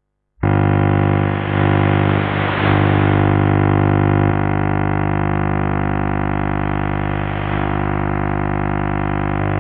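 Video buzz from the demodulated vision carrier of a distant channel E4 TV station, received by trans-equatorial propagation: a steady, harsh drone of many stacked tones. It starts abruptly about half a second in, with hiss swelling in and out a few times and the tone shifting slightly about four seconds in.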